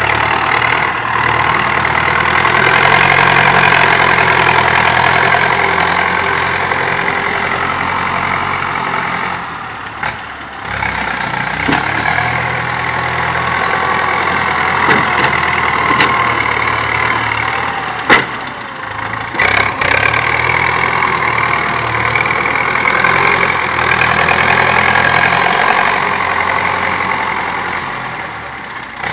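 Farm tractor's diesel engine running steadily under load while it pulls a disc harrow through freshly dug soil, with a single sharp knock a little past the middle.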